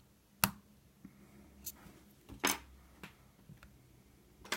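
Metal lock-picking tools clicking in a cheap bike lock's pin-tumbler keyway under heavy tension: a few sharp clicks, the loudest about half a second in, with a short scraping rattle midway and another click near the end.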